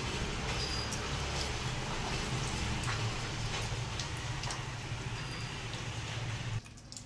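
Hands kneading and crumbling congealed, salted goat blood in a steel bowl: soft wet squishing with faint scattered clicks over a steady low hum, which drops away abruptly near the end.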